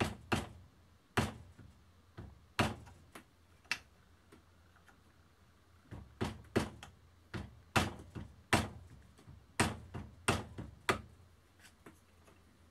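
Soft-faced mallet tapping the end of an oak dowel held as a punch against a Glock 43's polymer rear sight, drifting the sight sideways out of its dovetail: about twenty sharp taps in irregular groups, trailing off to a few light ones near the end.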